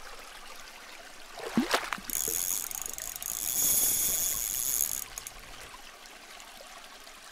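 Sound effect for an animated channel logo: a short swoosh about one and a half seconds in, then a steady high hiss for about three seconds that cuts off suddenly.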